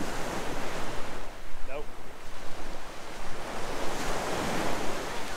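Gulf surf washing up the beach, swelling twice, near the start and again about four seconds in, with wind buffeting the microphone.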